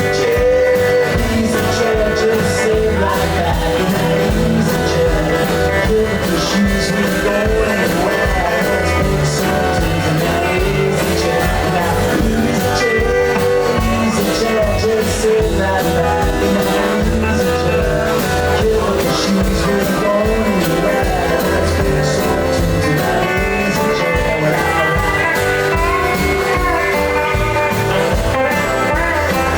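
Live band playing a blues-rock song, with guitar over bass and drums at a steady loud level.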